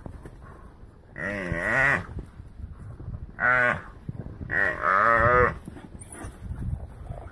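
An oryx (gemsbok) bellowing in distress while being bitten and pulled down by African wild dogs: three drawn-out, moo-like bawls that bend in pitch, about a second in, at the middle and just past the middle.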